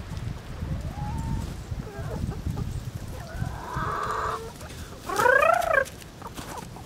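Young pullets clucking and calling, a few separate calls, the loudest a rising-and-falling squawk a little after five seconds in.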